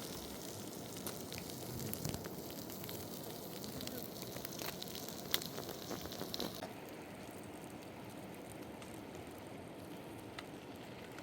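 Wood fire crackling with sharp pops over the steady rush of a river. The crackling stops about six and a half seconds in, leaving only the river's rush.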